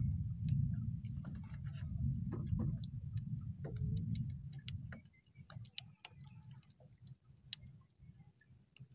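Low rumble of wind and water on an open boat at sea, fading away about halfway through, with scattered light clicks and taps throughout.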